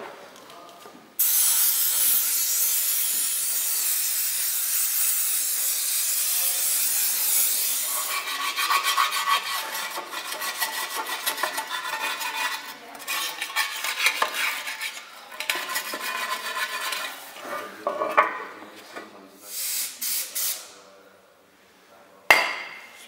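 Brake cleaner sprayed from an aerosol can into a Saab B204 engine's removed oil sump: a steady hiss that starts suddenly about a second in and lasts about seven seconds. Then irregular scrubbing and rubbing on the inside of the pan as it is cleaned, stopping shortly before the end.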